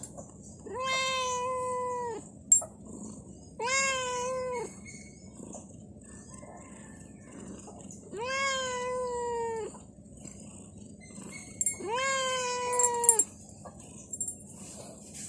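A cat meowing four times, each a long drawn-out meow of about a second, with a few short clicks between the calls.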